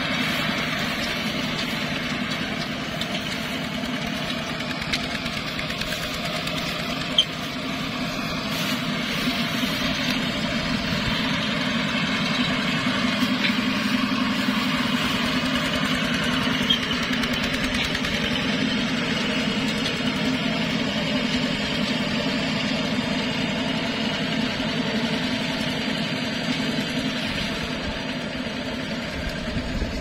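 Single-cylinder diesel engine of a two-wheel walking tractor running steadily as it pulls a trailer loaded with sacks of rice.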